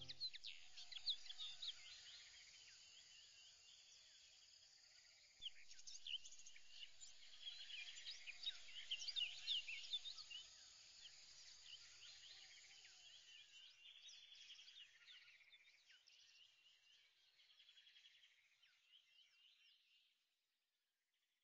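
Faint chorus of many small birds chirping, getting louder about five seconds in and fading out near the end.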